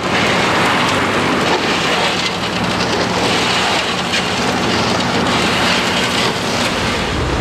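Hot cast asphalt mix pouring off a mixer truck's steel chute into a pothole: a steady, loud rushing noise, over the low hum of the truck's running engine.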